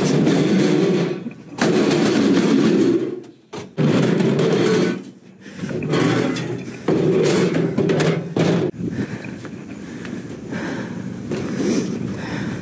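Display-rack panels being handled and shoved into a van's cargo area: stretches of scraping and handling noise broken by several sharp knocks and thuds.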